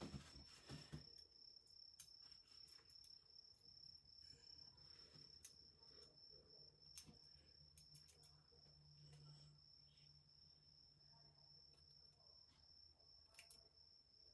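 Faint, scattered snips of hair-cutting scissors closing on hair, over a steady, high-pitched pulsing tone.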